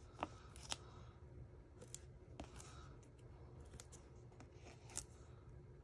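Near-silent paper handling: a few faint, scattered clicks and rustles as foam dimensionals are peeled from their backing and pressed onto a small die-cut paper piece.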